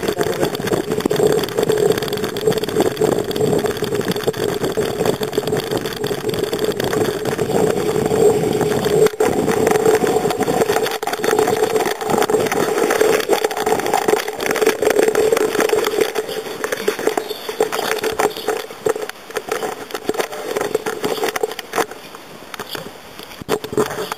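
Loosened handlebar camera tripod rattling and buzzing as the bicycle rides over a rough path, with a steady mid-pitched hum and many quick clicks; it dies down near the end.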